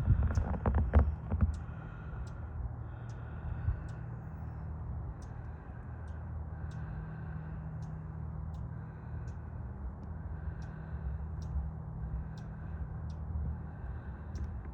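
Footsteps crunching in fresh snow at a steady walking pace, about one and a half steps a second, over a steady low rumble.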